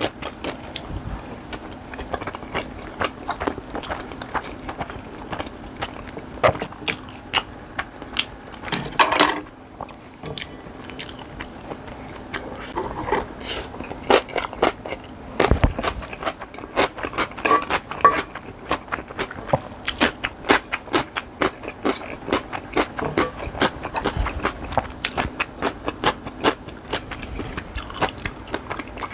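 Close-miked eating: a person chewing and biting bibimbap with crisp side dishes such as raw radish salad and cucumber, making many short wet clicks and crunches. A longer scraping noise comes about nine seconds in.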